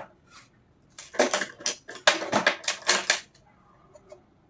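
Plastic mandala dotting tools clattering as they are set down on a table: a quick run of clicks and knocks lasting about two seconds.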